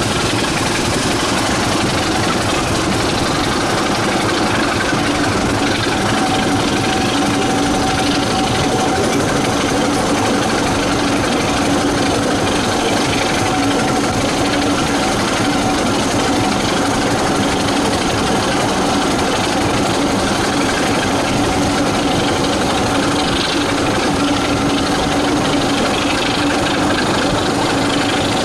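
Heritage diesel train running steadily, its engine giving a constant note with a few held tones over the noise of wheels on the rails.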